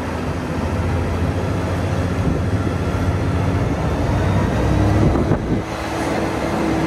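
Steady engine hum and road noise of a moving vehicle, heard from on board, with a brief dip about five and a half seconds in.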